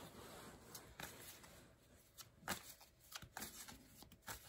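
Tarot cards being shuffled in the hands, faintly: a scatter of soft, irregular card flicks and taps.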